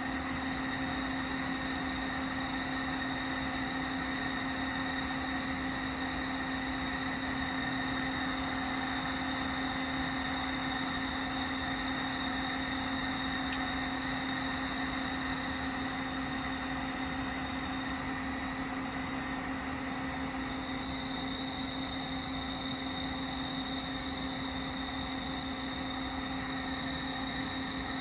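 Engine idling with a steady, unchanging drone and a constant hum.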